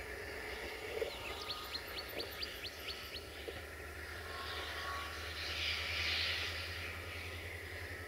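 A passenger train rolling away over the station tracks, heard faintly as a low steady drone with a swell of hiss around six seconds in. A small bird sings a quick run of about eight chirps starting about a second in.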